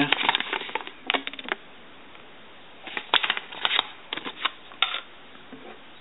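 Folded paper instruction leaflet being unfolded and handled, rustling and crackling in several short spells with quiet gaps between.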